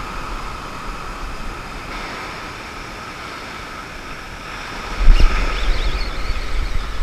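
Small surf waves washing up the beach, a steady rushing hiss. About five seconds in, wind starts buffeting the microphone, adding a loud low rumble.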